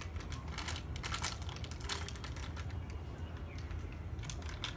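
Small plastic packet of baking soda crinkling as it is handled and opened: irregular sharp crackles, bunched in the first second or so and again near the end, over a steady low hum.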